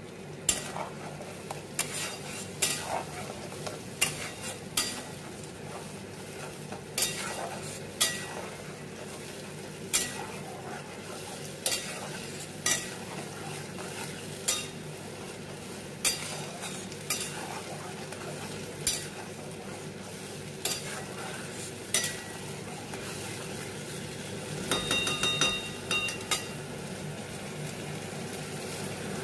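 Steel spatula stirring and scraping thick spice paste frying in oil in a pan, over a steady sizzle: the masala being fried down (kasha) for a curry. The spatula clacks against the pan about once a second, with a quick run of ringing metallic taps near the end.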